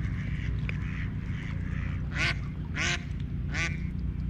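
Waterfowl calling with short nasal calls: a few faint ones, then three louder ones about two-thirds of a second apart from about two seconds in.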